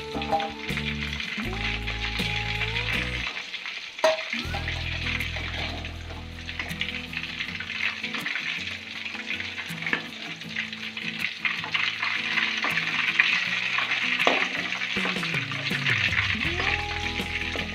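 Marinated chicken pieces sizzling as they fry in hot oil in an aluminium kadai, a steady crackling hiss, with a steel ladle stirring through the oil and lifting the pieces out, giving small metal clicks.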